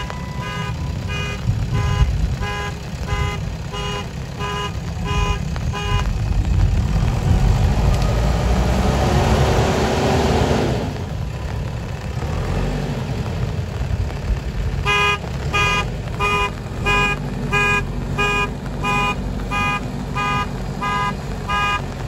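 JCB 3DX backhoe loader's diesel engine running, with its reversing alarm beeping about twice a second as the machine backs up. The beeping stops about six seconds in, the engine grows louder for a few seconds, and the beeping starts again a few seconds later.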